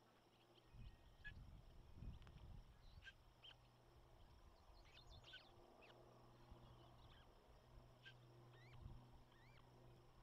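Faint, scattered bird chirps and a few short whistled calls over a steady low electrical hum, with low rumbles on the microphone in the first few seconds and again near the end.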